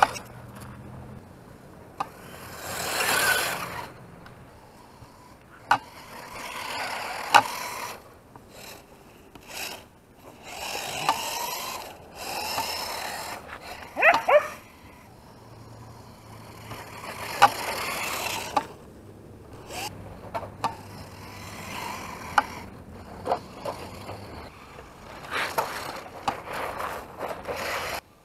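A Traxxas Rally RC car's HPI WR8 off-road tires spinning and sliding on ice: repeated bursts of scraping hiss, each a second or two long, with sharp clicks in between.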